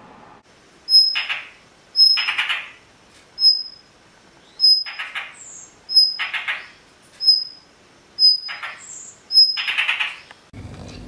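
A bird calling over and over, about eight calls roughly a second apart, each a sharp high note followed by a short harsh rasp.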